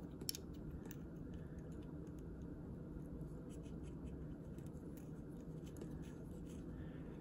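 Faint scratching and small clicks of fingers working a small screw into a steel A1 rear sight aperture on an M16 carry handle, with one sharper click just after the start, over a steady low hum.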